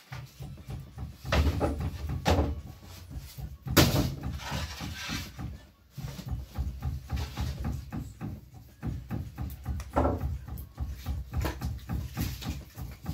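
Irregular knocks, thumps and scrapes of a long wooden peel against a clay wood-fired bread oven as flatbread is taken out, the loudest knock about four seconds in.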